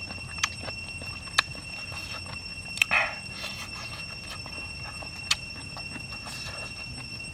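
A steady high-pitched whine with scattered sharp clicks, and a brief, louder crackle about three seconds in.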